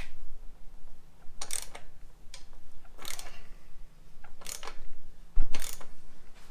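Ratchet wrench clicking in four short bursts, about a second and a half apart, as it works a very tight, stubborn bolt.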